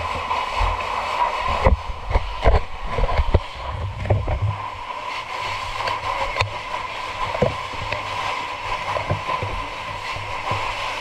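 Water from fire hoses spraying and splashing over a steady low engine hum. A quick run of knocks and thuds comes about two to three and a half seconds in.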